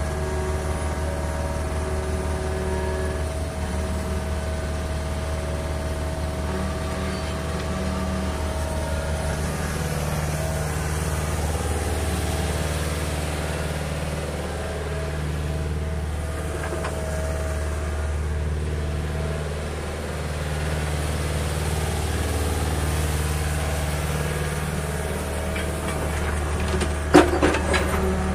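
Hyundai R55-5 crawler excavator's diesel engine running steadily as the upper body swings around, its tone shifting slightly in steps. Near the end, a brief cluster of sharp knocks stands out as the loudest sound.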